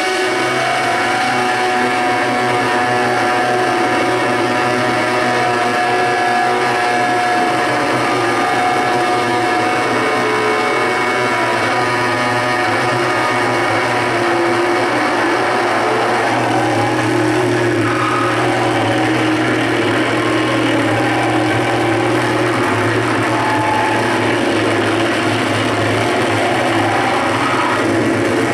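Live noise music from a table of patched effects pedals: a dense, steady wall of noise over a low drone, with pitched tones that waver and bend more from about halfway in.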